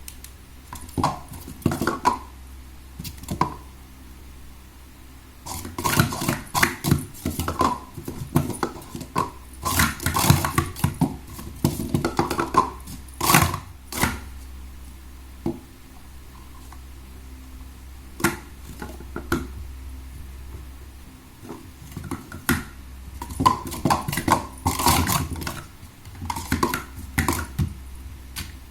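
Plastic sport-stacking cups being handled, clacking together in several bursts of rapid clicks with short pauses between.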